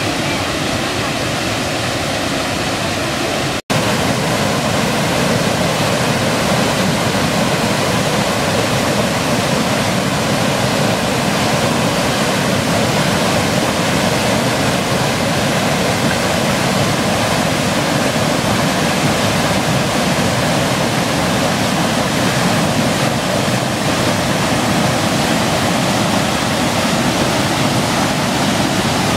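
Waterfall: water rushing and splashing steadily, cutting out for an instant about three and a half seconds in.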